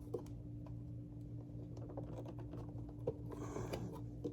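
Small clicks and a short scrape as the rubber drive belt is stretched over the agitator and motor pulley of an upright vacuum cleaner, over a steady low hum.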